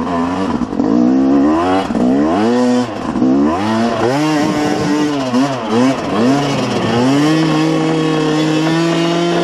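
A 250 cc two-stroke enduro motorcycle being ridden, its engine revving up and down repeatedly with the throttle. Near the end it holds a steady high rev.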